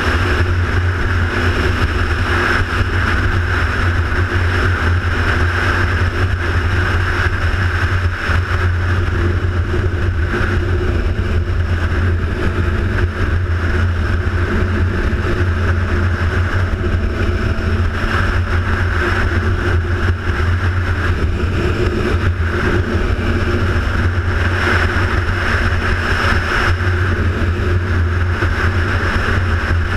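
Steady, loud running noise of a vehicle on the move: a constant low engine hum mixed with a rushing haze, without letting up.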